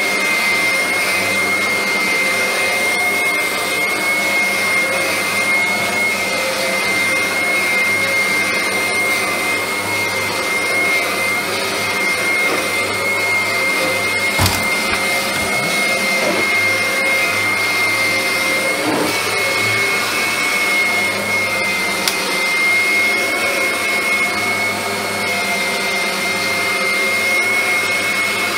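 1989 Kirby G4 Tech Drive upright vacuum cleaner running steadily over carpet, its motor giving a constant high whine. A single sharp knock comes about halfway through.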